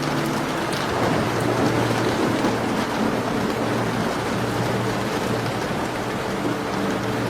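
Steady rain tapping on a window, with faint fireplace crackles and a low rumble of thunder swelling about a second in.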